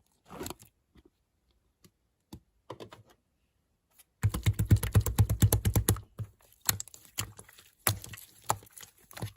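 Slime being played with by hand: a few scattered soft clicks, then a dense run of rapid clicking pops for about two seconds in the middle, then scattered clicks again.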